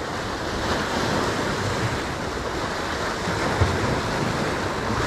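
Sea waves washing and breaking over the rocks of a breakwater, a steady rushing surf, with one brief low thump about three and a half seconds in.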